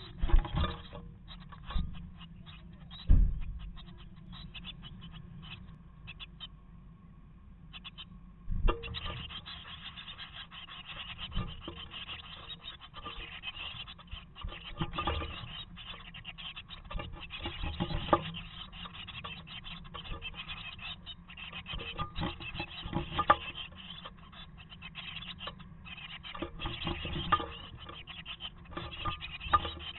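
Blue tit nestlings shifting and scratching in the nest material of a wooden nest box, heard close up as a continuous rustling and scraping. A few sharp knocks come in the first few seconds as the adult bird leaves the box, and the rustling thins out for a few seconds before it picks up again.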